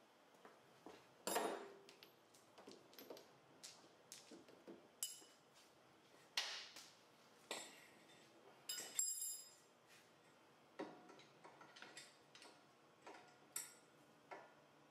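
Irregular metallic clinks and clanks of hand tools and metal hardware being handled at a car's front wheel hub, a few with a short metallic ring, the loudest about a second in.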